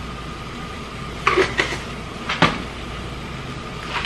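Kitchen containers and utensils handled at the stove: a few light clicks about a second in and one sharper knock about two and a half seconds in, over a steady low background hum.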